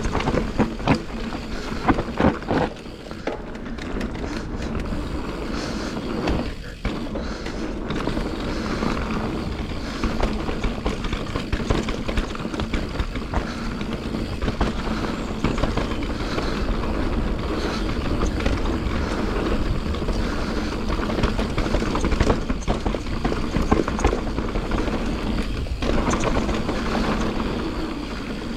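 Santa Cruz Nomad mountain bike riding a downhill trail: tyres rolling over dirt and rock, with clattering knocks from the chain and frame, and a low wind rumble on the camera microphone.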